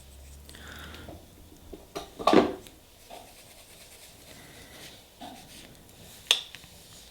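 Small nail-stamping tools worked on a table: soft rubbing and scratching, a short louder scrape a little over two seconds in, and a sharp click a little after six seconds.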